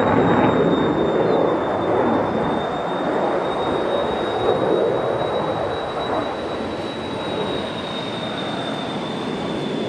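F-35 fighter's jet engine heard from the ground as it flies a display pass: a broad, steady rumble that slowly fades as it moves away, with a thin, steady high whine above it.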